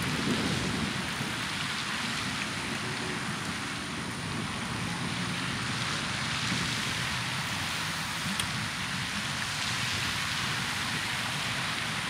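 Steady rushing hiss of a pond fountain's water spray, even throughout with no breaks.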